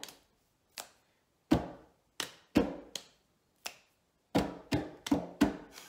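Two people's hands slapping a wooden tabletop and clapping in a practised rhythmic pattern, about ten sharp strikes in uneven groups, some with a short hollow thud from the table.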